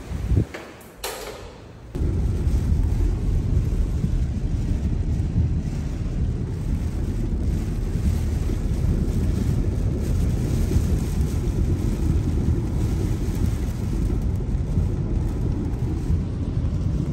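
Car driving through heavy hurricane rain on a flooded road: a steady, loud, low rumble of wind, rain and tyre spray that starts abruptly about two seconds in, after a couple of brief knocks.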